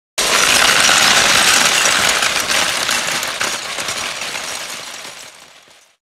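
A dense mechanical rattle of many tiny rapid clicks, like a ratchet or gears. It starts suddenly and fades away over about five seconds.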